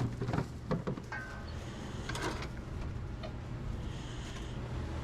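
Restaurant kitchen at work: a steady low hum of kitchen equipment under clatter and knocks of utensils and dishes, busiest in the first second or so, with a short squeak just after.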